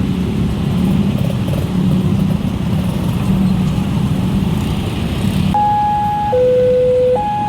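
Road traffic running past. Near the end, a railway level-crossing warning siren starts: two clean tones, high then low, each held a little under a second, warning that a train is approaching.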